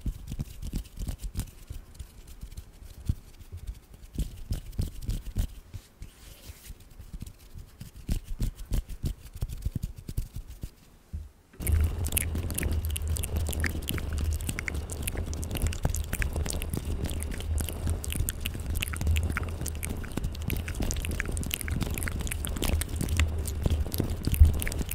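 Fingers fluttering close to a foam-covered microphone: a dense run of soft, quick taps and brushes. About twelve seconds in it switches suddenly to layered ASMR triggers, louder and denser: microphone scratching with a steady low rumble, mixed with wet mouth sounds and finger flutters.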